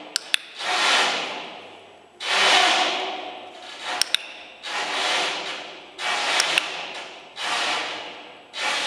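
Dog-training clicker clicking in quick click-clack pairs, three times, marking the dog's nose touches on the target, over a louder rushing noise that swells and fades about every second and a half.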